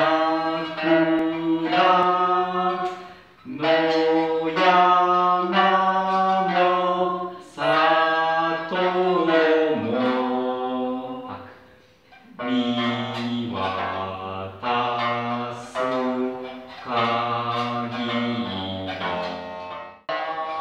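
Music: a slow melody sung in long, held notes, in phrases a few seconds long with short breaks between them.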